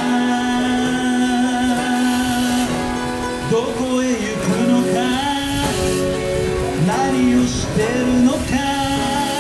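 A man sings into a microphone to his own acoustic guitar accompaniment. He holds one long note for about the first three seconds, then moves on through the melody.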